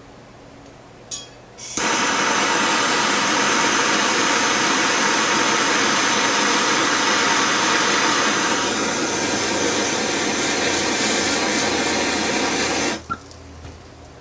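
Heat tool turned on after a click, blowing with a steady hiss for about eleven seconds and then shut off suddenly. It is heating a soldered joint to free a lamp reflector from its bezel.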